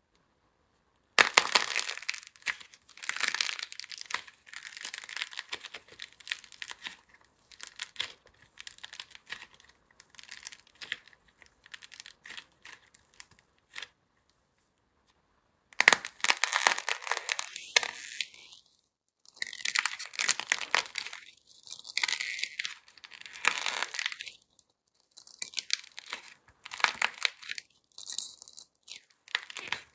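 Balls of clay being squeezed and cracked between the fingers: dry crackling and crunching in bursts. It starts about a second in, stops for a moment about halfway, then starts again.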